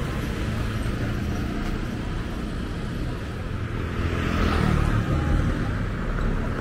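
Street traffic noise with engines running steadily, and a vehicle passing close about four seconds in, louder for a second or so.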